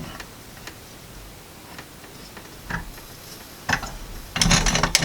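Hand-cranked burr grain mill: a few scattered clicks, then from about four and a half seconds in a quick, irregular run of clicks and crackles as the plates are tightened down and the grain between them starts to crack.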